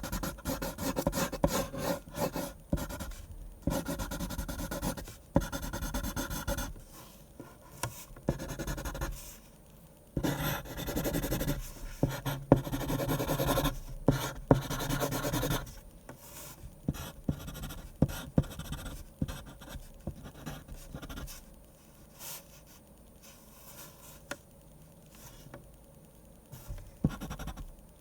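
Pen scratching across paper in many short strokes as a manga is drawn, busiest and loudest around the middle, then lighter and more scattered towards the end.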